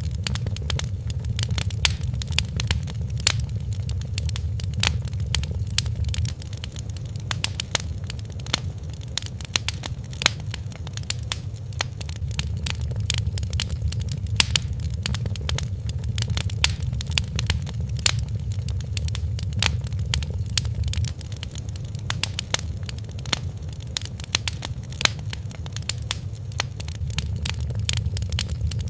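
Wood fire crackling in a fireplace: frequent irregular sharp pops and snaps over a steady low rumble of the burning fire.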